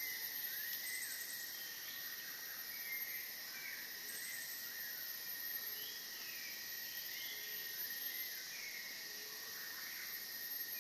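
Tropical forest ambience: a steady high buzzing of insects, with short rising-and-falling chirps from other birds about once a second.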